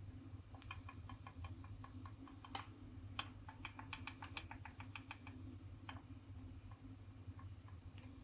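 Mechanism of a large wall-mounted flip clock clicking as it turns over to the next minute: a quick run of small clicks, about six a second for some five seconds, with a couple of louder clicks among them, then a few single clicks.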